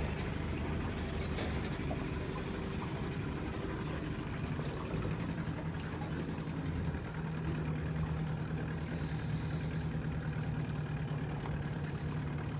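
A fishing boat's motor running steadily at low speed, its pitch stepping up slightly about halfway through.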